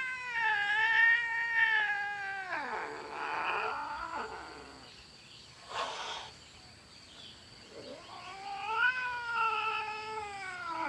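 Two domestic cats in a territorial standoff, yowling: a long drawn-out howl that bends and then slides down in pitch, a rough growling stretch and a short harsh burst, then a second long rising-and-falling howl near the end.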